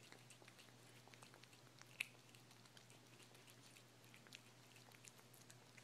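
A cat chewing and eating its own vomited-up cat food: faint, irregular small clicks of eating, with one sharper click about two seconds in.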